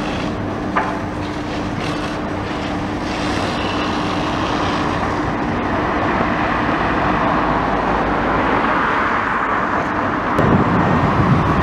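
High-reach demolition excavator running steadily, its engine and hydraulics giving a constant hum under a wash of noise. A louder rush builds through the second half and a heavier low rumble comes in near the end.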